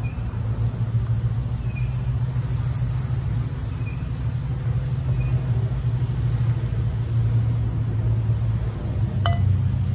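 Steady high-pitched chorus of crickets, over a low steady rumble, with a single sharp click about nine seconds in.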